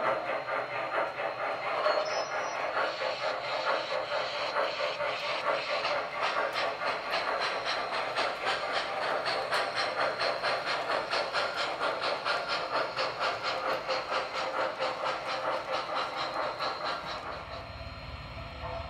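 MTH model steam train with a 2-8-0 locomotive running on its track, the freight cars rolling past. It gives a steady rhythmic clicking of about four beats a second over a hiss, growing quieter near the end.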